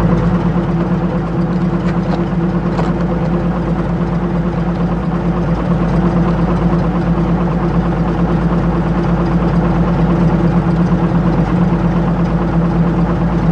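A motor vehicle engine running steadily at idle, a low, even drone that holds one pitch.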